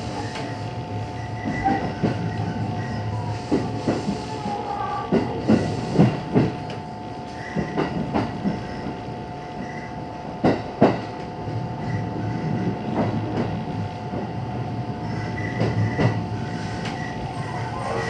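Cabin sound of a JR 221 series electric train running slowly: wheels click irregularly over rail joints above a steady hum.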